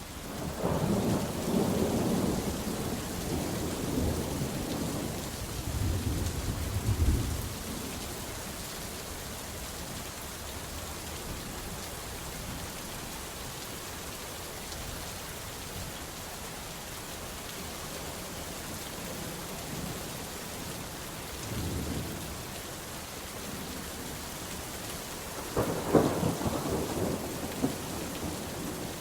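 Steady rain with thunder: a long rolling rumble over the first seven seconds or so, a short low rumble a little past twenty seconds, and a sharp crack followed by rumbling a few seconds before the end.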